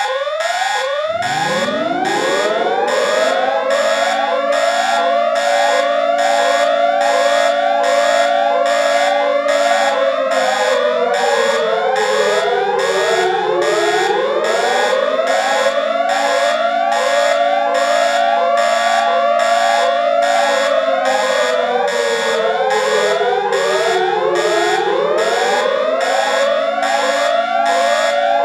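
Emergency Alert System (EAS) alarm: a siren that winds up from a low pitch to a steady wail over the first couple of seconds, then dips lower and rises back twice. Over it, a short rising tone repeats about three times every two seconds.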